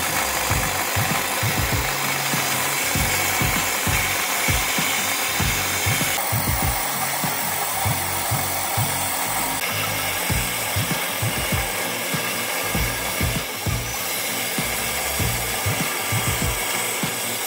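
A power tool working wood, with a steady rushing noise and many irregular low knocks throughout.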